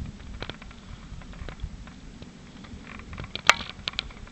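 Scattered light clicks and ticks over a low steady rumble, with one sharp click about three and a half seconds in.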